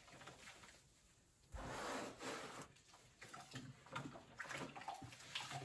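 Faint water sloshing and splashing as a grout sponge is rinsed by hand in a plastic bucket of water, with a short pause about a second in.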